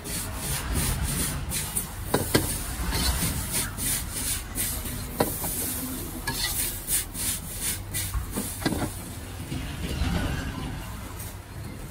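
Metal ladle and spatula scraping and tossing noodles in a hot wok, in quick repeated strokes over sizzling, with a few sharp clanks of metal on the wok. The strokes stop near the end.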